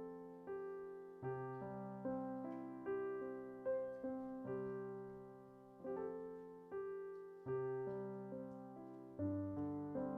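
Solo piano playing slow, soft chords, each struck about once a second and left to ring and fade.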